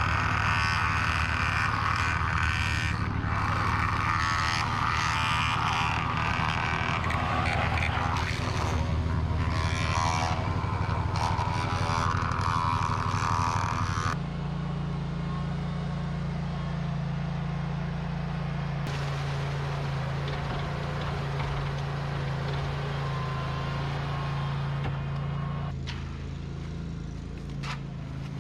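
Concrete-pour machinery engine running steadily, with rough, busy noise over it for the first half. The sound changes abruptly about 14 seconds in and again near the end.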